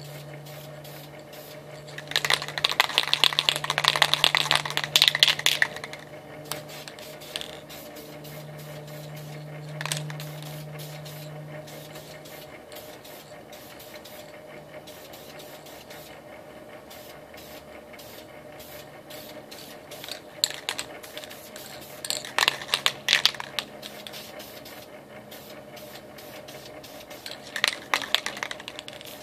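Aerosol can of Dupli-Color sandable primer spraying in short bursts to lay down a thin first coat: a longer burst of about four seconds near the start, then several shorter bursts near the end.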